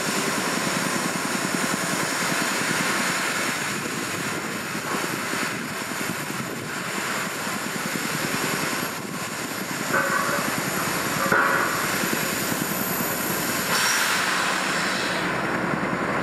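Steady mechanical din of heavy earthmoving machinery, a crawler excavator and a drilling rig, working at a large excavation. Two short squeals come a little past halfway.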